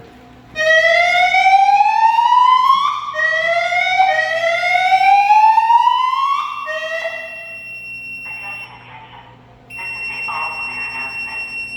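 Silent Knight 6820EVS emergency voice system speakers sounding a rising whoop alert tone, several upward sweeps in a row. A steady high-pitched tone follows, and then a muffled recorded voice message over it.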